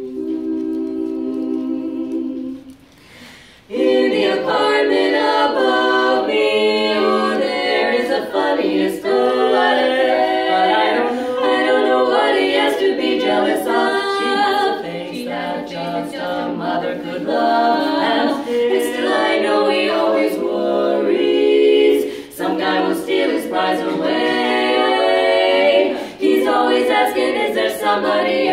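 Women's barbershop quartet singing a cappella in close four-part harmony. They hold a steady chord for the first couple of seconds, break off briefly, then launch into the song about four seconds in.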